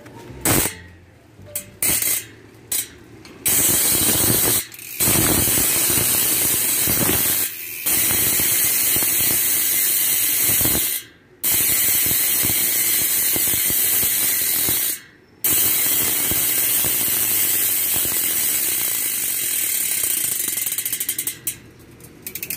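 Budget bicycle rear hub freewheeling with a loud ratchet buzz as the wheel is spun by hand and coasts. A few short spins come first, then a long steady buzz broken by a few brief pauses, slowing into separate clicks near the end.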